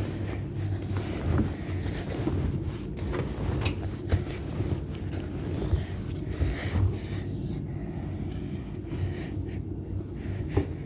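Washing machine running: a steady low hum and rumble, with scattered clicks and knocks.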